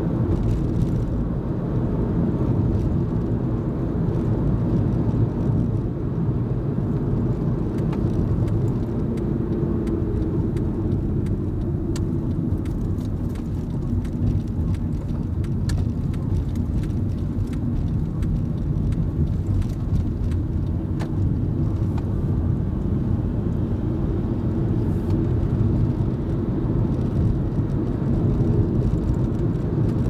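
Steady low rumble of a car's engine and tyres on the road, heard from inside the cabin while driving, with a few faint ticks around the middle.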